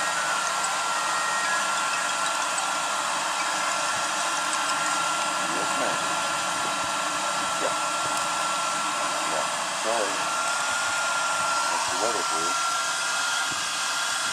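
Heavy-duty 1200-degree electric heat gun running steadily, its fan blowing a rush of hot air with a steady whine, aimed into a grill's charcoal briquettes to ignite them without lighter fluid.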